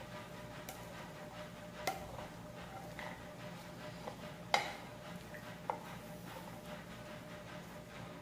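A spatula tossing a dressed chickpea and vegetable salad in a bowl: soft stirring with a few light knocks of the spatula against the bowl, the sharpest about four and a half seconds in.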